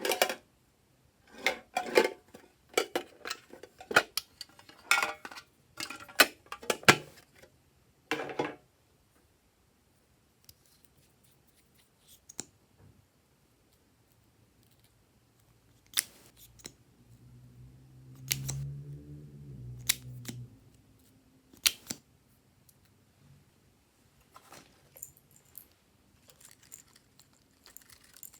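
Hands working slime and its add-ins: a quick run of sharp clicks and crackles for about eight seconds, then scattered single clicks, with a low hum for a few seconds midway.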